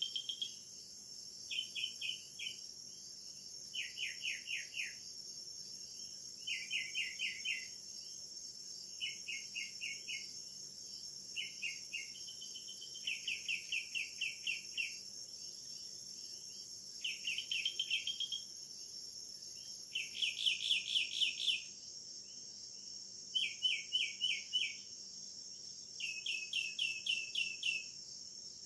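Tropical rain forest insect chorus: a steady high-pitched buzzing drone, with a louder pulsed trill about a second long repeating every two to three seconds.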